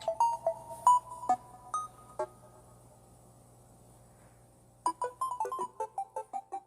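A simple electronic melody of short, plinking ringtone-like notes that stops for about two and a half seconds midway, then comes back as a quicker run of notes.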